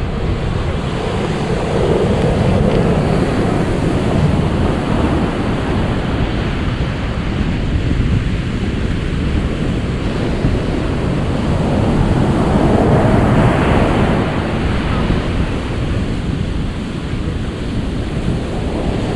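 Ocean surf washing in, with wind rumbling on the microphone. It swells louder twice: about two seconds in and again around thirteen seconds.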